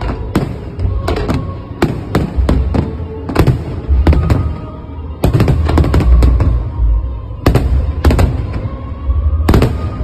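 Fireworks display: aerial shells bursting in quick succession, sharp bangs about every second, some in tight clusters, with deep booms rumbling underneath.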